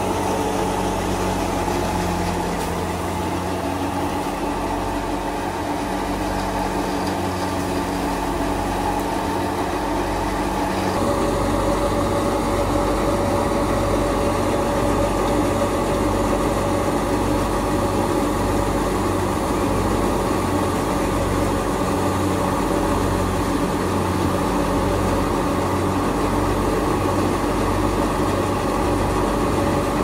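Wheat thresher running steadily while wheat is fed into it: a dense mechanical drone with a low throb pulsing about once a second. It gets slightly louder and its pitch shifts about eleven seconds in.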